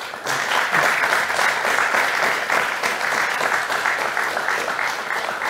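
Audience applauding: a dense patter of many hands clapping that starts at once and slowly tapers off toward the end.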